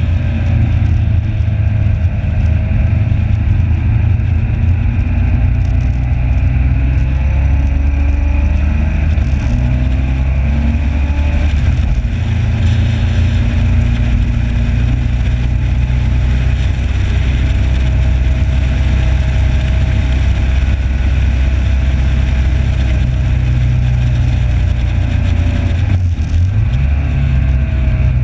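Motorcycle engine heard from an onboard camera at track speed, running hard with its pitch rising and falling several times, over steady wind noise.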